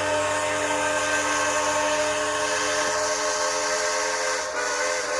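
Train whistle blowing one long steady note: a chord of several tones held without a break, with a low hum beneath it that stops about three seconds in.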